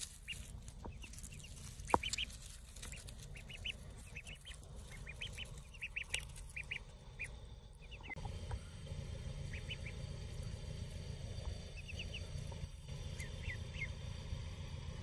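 White ducklings peeping: short high-pitched peeps in quick clusters, thinning out midway and picking up again near the end, with scattered clicks and rustles from dry leaves.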